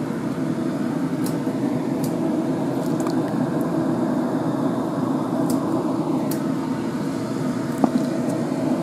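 A steady motor hum with a low tone runs throughout, with a few faint light clicks as hands work fenugreek leaves in a glass dish of water, the clearest near the end.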